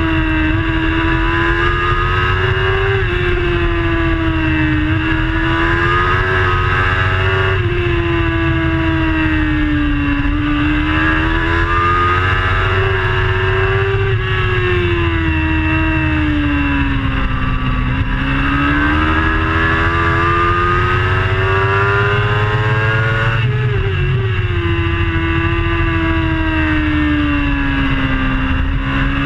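Racing superbike engine at high revs, heard from a camera on the bike over a steady rush of wind. The pitch climbs under acceleration with sharp drops at upshifts, about three of them, and sags more gently twice as the rider eases off for corners.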